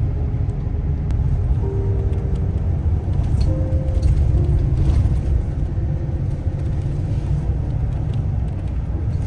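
Steady low engine and road rumble inside a moving shuttle bus.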